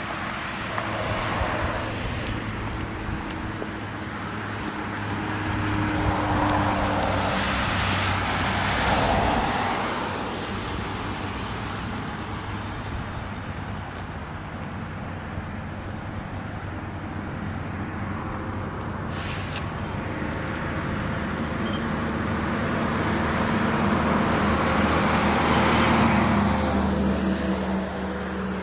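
Cars passing on a road, the two loudest passes about eight and twenty-five seconds in, over a steady mechanical hum from a fan-type snow cannon making artificial snow beside the road.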